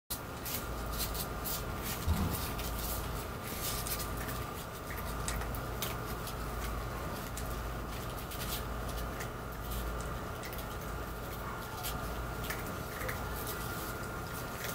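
Newborn kittens squirming in a cardboard box against their nursing mother: scattered light scratches and rustles, over a steady low hum.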